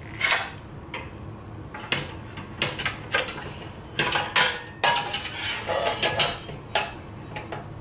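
Non-stick frying pans and their lids clanking against a metal wire pan-organizer rack as they are set into its slots: a string of irregular clanks, some briefly ringing.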